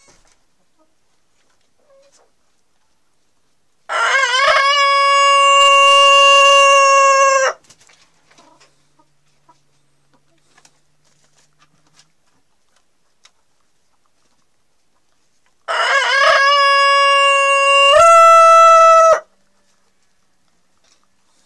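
Rooster crowing twice, each crow about three and a half seconds long and ending in a long held note. The second crow steps up in pitch for its final second.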